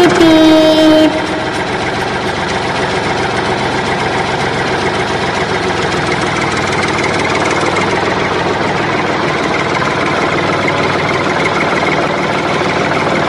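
A heavy vehicle engine idling steadily. It opens with a loud pitched blast lasting about a second, its tone dipping slightly.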